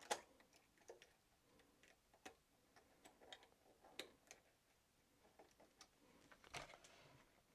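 Near silence broken by a few faint, scattered metal clicks of a hand transfer tool and latch needles on a Brother 260 bulky knitting machine. The sharpest click comes right at the start, and there is a short cluster of clicks near the end.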